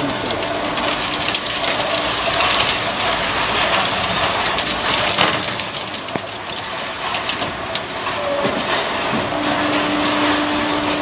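Electric motor stator cutting machine running as its blade presses down through a stator's copper windings: a continuous mechanical noise with scattered clicks and clanks. A steady hum joins in near the end.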